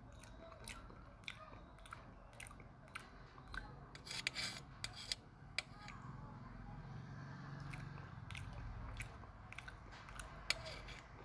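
Close-miked eating: chewing a mouthful of fried rice, with scattered sharp clicks of a metal spoon against a steel plate, a quick cluster of them about four seconds in and one sharp clink near the end.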